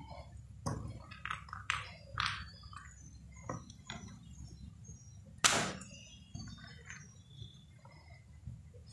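Chapati dough being pressed and flattened by hand on a foil-covered tray: soft scattered rustles and taps, with one louder, brief rustle about five and a half seconds in.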